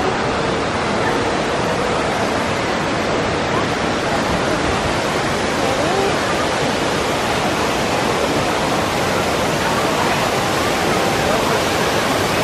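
Steady rushing ambience of a large indoor water park: artificial waterfalls pouring into the pool, blended with a faint, distant hubbub of swimmers' voices.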